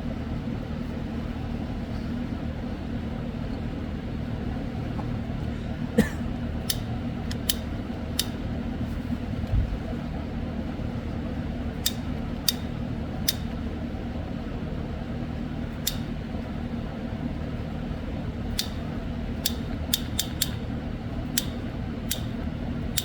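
Sharp clicks from a hand tool at work on the wiring, singly and in quick runs from about six seconds in, over a steady low hum.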